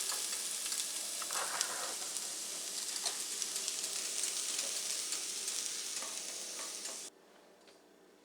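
Julienned potatoes sizzling in hot oil in a skillet while being stirred, with small utensil clicks. The sizzle stops abruptly about seven seconds in.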